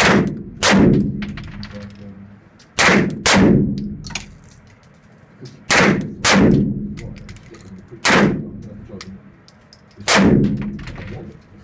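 Gunshots from a firearm: eight sharp shots at uneven spacing, several in quick pairs about half a second apart, each with a long echoing tail.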